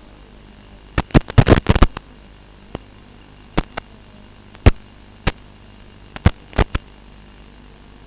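Hiss from an analog FPV video receiver, broken by sharp crackling pops as the weak signal drops out: a quick burst of pops about a second in, then single pops every second or so.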